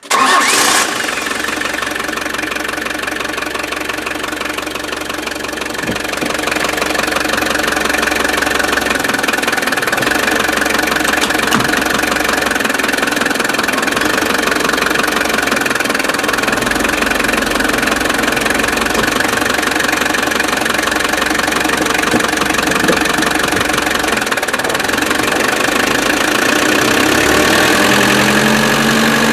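Nissan LD23 four-cylinder diesel engine starting up at the very start and then running steadily, heard at close range through the open engine compartment while the van is driven slowly. Near the end the engine note rises.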